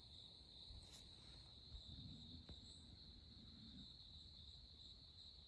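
Near silence, with a faint, steady, high-pitched insect chorus of crickets or similar insects.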